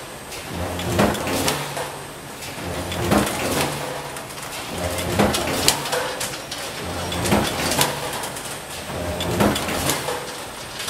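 Hot-forging press working heated tire-bolt blanks in a steady cycle about every two seconds. Each cycle is a short low hum followed by one or two sharp metallic strikes.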